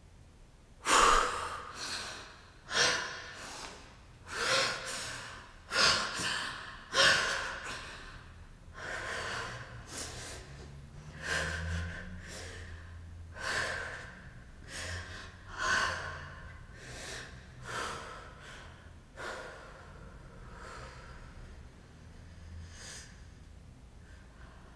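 A woman gasping and breathing hard in sharp bursts. They are loudest and about a second apart at first, then come weaker and farther apart.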